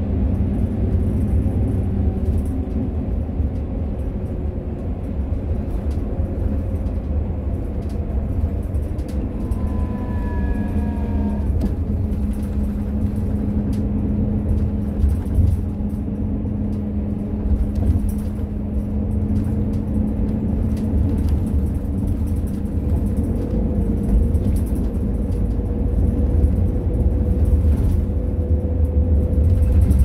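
Cabin of a Suwon route 3003 seated bus on the move: steady low engine and road rumble. A few short falling whines come about ten seconds in, and a whine rises slowly in pitch over the last several seconds.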